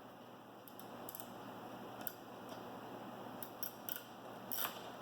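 Ratcheting wrench clicking as it tightens a nut on a bolt. The clicks are scattered at first and come faster and louder toward the end.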